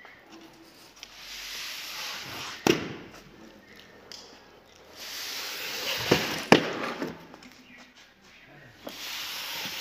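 Thin plywood sheets being handled: a few sharp knocks, one about three seconds in and two close together around six seconds, with stretches of hissing rustle of the sheets between.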